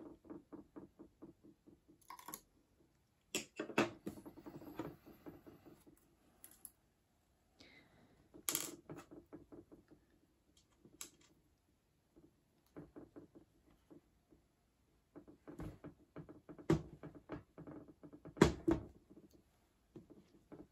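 Runs of quick, light clicks from a small Allen driver working a set screw into the rotary's drive piece. Four louder knocks come from the metal rotary body and tools being handled on a wooden table.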